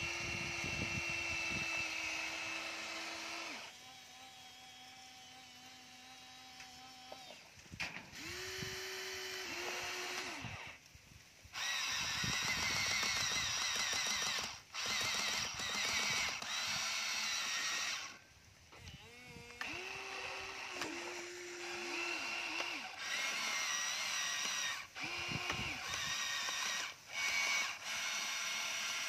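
Electric motors of a Huina radio-controlled toy excavator whining in short runs as the boom, arm, bucket and turntable move. Each run starts and stops abruptly, and the pitch steps up or down as a different motion is driven.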